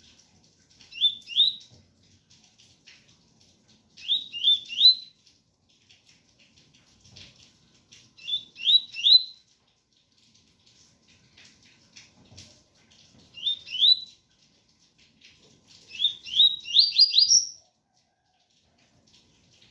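Double-collared seedeater (coleiro) singing the 'tui-tui' song type: five short phrases of two to four quick rising whistled notes, about every three to four seconds, the last phrase longer and climbing higher.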